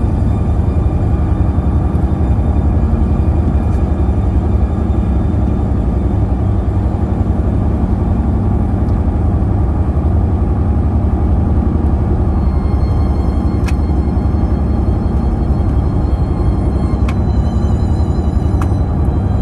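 Car driving on the road: a steady low rumble of engine and tyres, with a few faint clicks in the second half.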